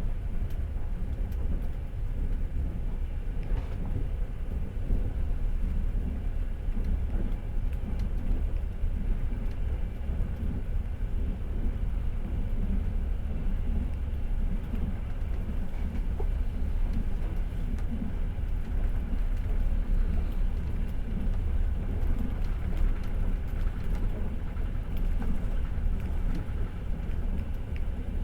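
Passenger train running at speed, heard from inside the carriage: a steady low rumble of wheels and running gear with a few faint scattered clicks.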